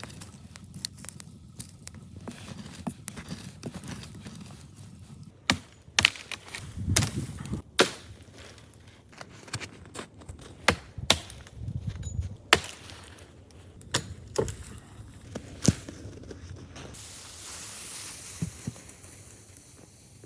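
Wood being chopped and broken: a run of sharp, irregular cracks and knocks, about a dozen, after a few seconds of quiet rustling, with a steady hiss near the end.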